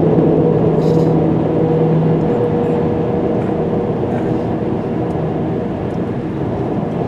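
Steady road noise inside a car travelling at highway speed: tyre and engine drone, with a low hum that fades about two seconds in.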